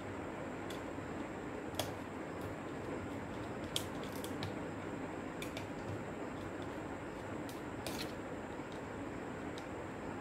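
Small sharp clicks and light tapping of a screwdriver and plastic case parts as a portable CD player is being taken apart by hand, a few clicks a second or two apart over a steady low hiss.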